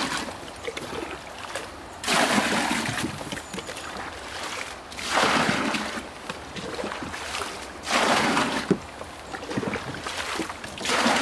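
Water splashing and sloshing in bursts about a second long, roughly every three seconds, with a softer trickle between.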